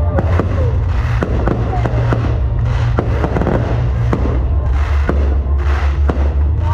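Aerial firework shells bursting overhead in a rapid series of sharp bangs over a continuous low rumble.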